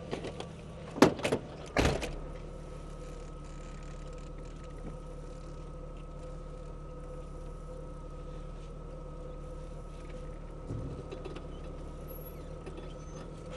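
Off-road vehicle's engine idling steadily, with a thin steady whine over the hum. About a second in, a vehicle door is opened and then shut with two sharp clunks.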